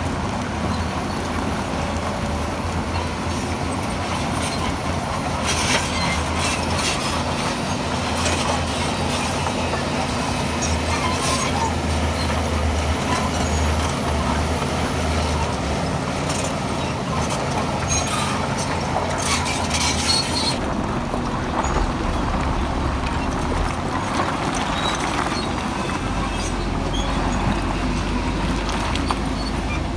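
Shantui DH17 crawler bulldozer's diesel engine running steadily under load. From about five to twenty seconds in there is a stretch of clanking and scraping of stone and metal.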